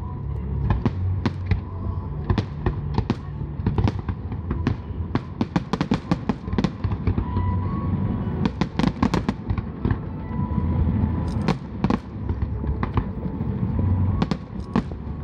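Fireworks display: a steady run of shell bursts and sharp bangs over a low rumble, with a dense cluster of bangs about nine seconds in.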